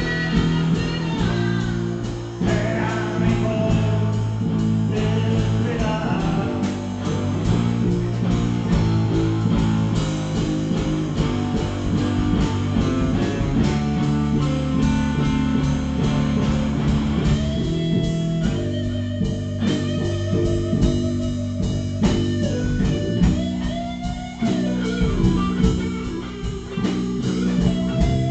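Background music: a blues-rock song led by guitar, with a steady bass line and held, wavering lead notes in the second half.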